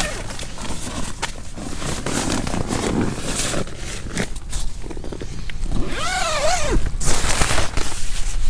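Nylon tent fabric and bedding rustling and scraping as someone moves about inside a tent, with a tent-door zipper rasp about six seconds in that rises and then falls in pitch as the door is unzipped.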